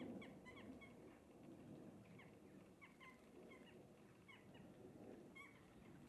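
About a dozen short, high bird chirps at irregular intervals, over a faint splashing of water as starlings bathe in a stone bird bath.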